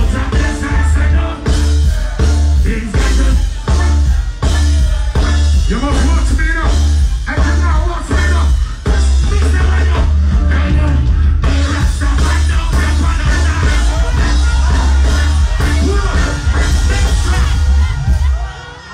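Live reggae band playing loud, with a heavy bass line, drums and a voice singing over it; the bass and band drop away near the end.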